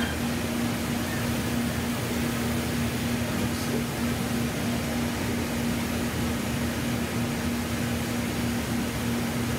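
Steady hum of commercial kitchen equipment: one constant low tone over a hiss of moving air, unchanging throughout.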